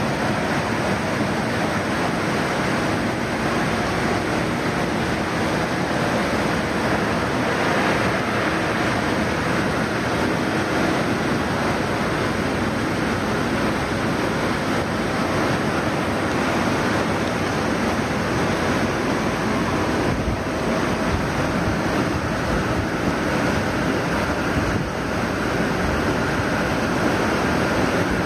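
Steady rushing, watery noise of agitated electro-polishing and rinse tanks, the liquid churning continuously, with no break or change.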